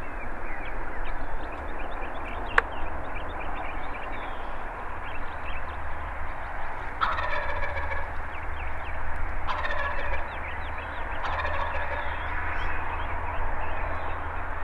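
Wild turkey gobbler gobbling three times at close range, each gobble about a second long, over background songbirds chirping. A single sharp click sounds about two and a half seconds in.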